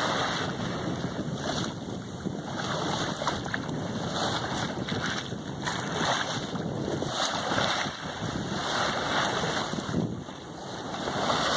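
Wind buffeting the microphone over the rush and slosh of sea water along a boat's hull, rising and falling unevenly.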